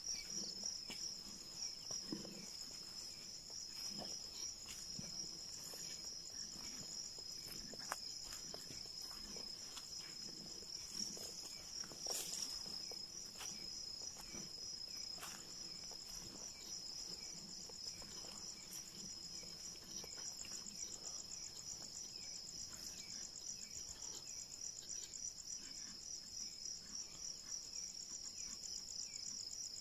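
Night insect chorus: a steady, high-pitched rapid trill from crickets. Faint scattered ticks and rustles run under it, with one sharper click about twelve seconds in.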